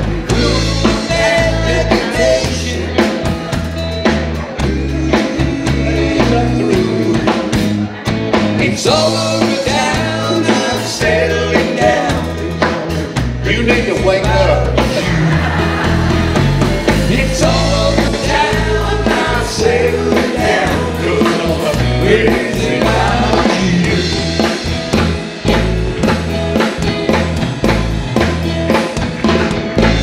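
Live band playing through a PA: drum kit and electric guitar keeping a steady beat, with a man singing over them.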